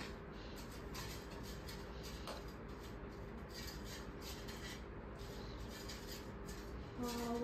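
Faint clinks and scrapes of spoons against plates as people eat rice, over quiet room tone with a steady low hum.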